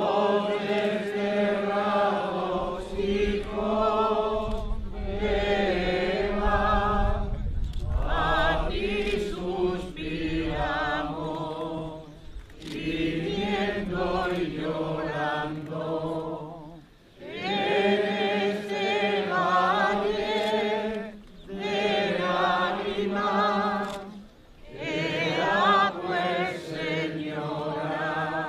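Unaccompanied singing voices, sung in phrases a few seconds long with short breaks between them.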